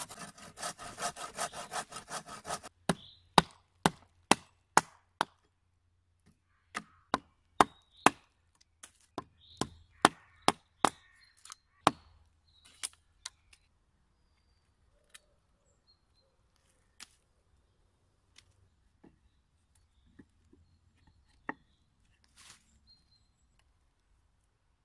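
Bow saw cutting through a thin log in quick even strokes, stopping about three seconds in. Then a wooden mallet knocking a wooden dowel into a log joint: a run of sharp wood-on-wood knocks, a few every second, that thins out about halfway through, followed by a few faint scattered clicks.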